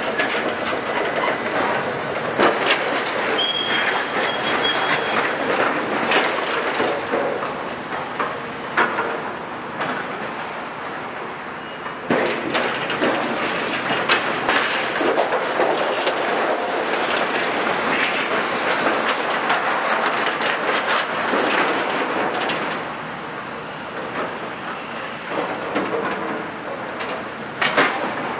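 Demolition excavators working on steel and concrete: continuous clattering and crunching with frequent sharp knocks of metal and rubble, and a brief high metal squeal a few seconds in.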